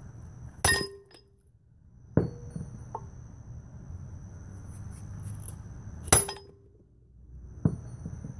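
Steel punch struck from above to drive a wheel stud into a GM 14-bolt full-floating hub and drum: two sharp, ringing metal-on-metal blows about five seconds apart, each followed about a second and a half later by a softer knock. After the two blows the stud is almost seated.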